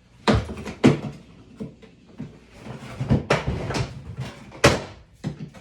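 Hard plastic and metal clunks and rattles as tools are pulled out of a Packout tool box: about five sharp knocks with lighter clatter between them.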